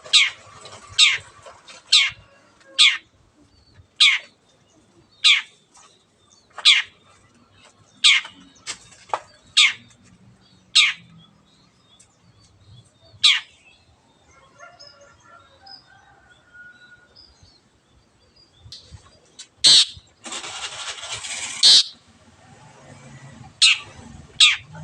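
Long-tailed shrike (cendet) calling: a string of short, sharp calls that sweep steeply downward, about one a second at first, then sparser. Near the end comes a loud, harsh rasp lasting about two seconds.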